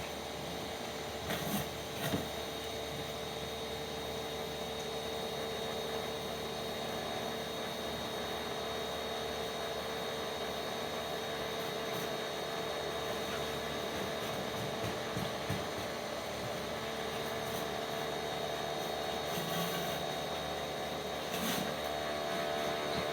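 Pressure washer running steadily while spraying water, a constant machine hum under a hiss, with a few brief knocks.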